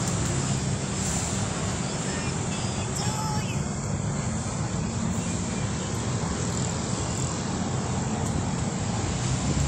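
Steady street traffic noise, an even rumble with no single event standing out.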